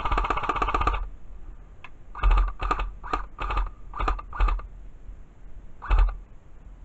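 Airsoft rifle firing: a rapid full-auto rattle lasting about a second, then a string of about seven short bursts spread over the next few seconds.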